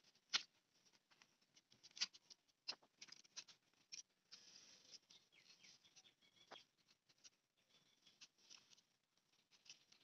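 Faint sharp clicks and short scraping strokes of a utility knife blade cutting into a green plant cutting, the loudest clicks about half a second and two seconds in, with a longer scrape around the fourth second.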